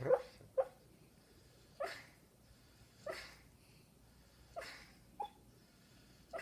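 A sleeping dog dreaming, giving short soft woofs and huffs in its sleep, about six in a row, roughly one a second.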